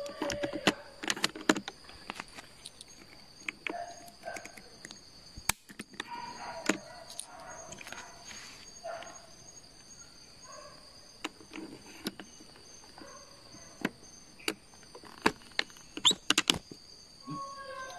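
Tropical forest ambience: insects keep up a steady high-pitched drone with a faster pulsing chirp above it. Irregular sharp cracks and rustles, like dry leaves and twigs snapping in the undergrowth, come through it, along with a few short faint calls.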